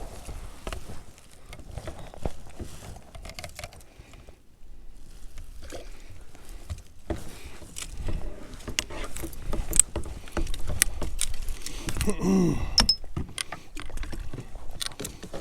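Scattered clicks, knocks and rattles of fishing gear being handled aboard a kayak, with wind rumbling on the microphone.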